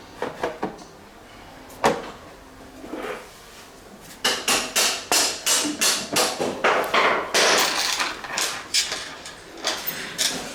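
Workshop handling noises of tools and parts: a few knocks, a sharp one about two seconds in, then a run of quick rasping strokes, about three a second, for several seconds.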